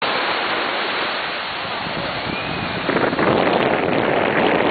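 Surf breaking on a sandy beach, mixed with wind buffeting the microphone; the noise gets louder about three seconds in.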